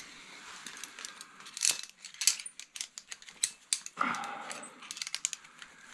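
Steel carabiners of a via ferrata lanyard clicking and jingling against each other and the steel safety cable as the climber unclips and moves along it. A run of many short metallic clicks, with a brief rustle about four seconds in.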